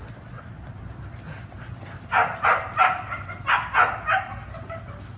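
A dog barking, a quick run of about six barks starting about two seconds in.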